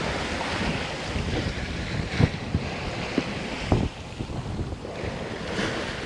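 Sailing yacht under sail at sea: wind and water rushing past the hull, with wind buffeting the microphone. A few brief knocks sound around the middle.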